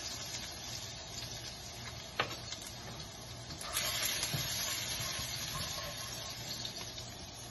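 Chopped garlic sizzling in hot oil in a wok, with a sharp knock about two seconds in. From just before four seconds in, a slotted spatula stirs the garlic and scrapes against the pan, and the sound grows louder and busier.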